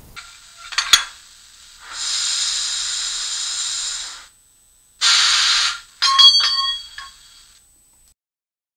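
Coupling sound from the sound decoder of a PIKO N-scale BR 82 steam locomotive model: a click, a hiss of about two seconds, a shorter hiss, then a few ringing metallic clanks.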